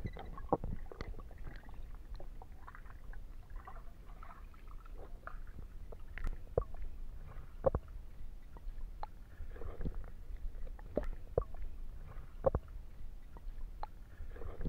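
Muffled sound picked up by an underwater camera as a spearfisher moves through the water: a steady low rumble of water movement with gurgling, broken by many irregular knocks and clicks.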